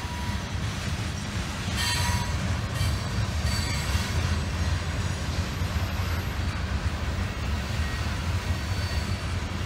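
Freight train of covered grain hopper cars rolling past with a steady low rumble. Brief high-pitched wheel squeals come and go every second or two, the first about two seconds in.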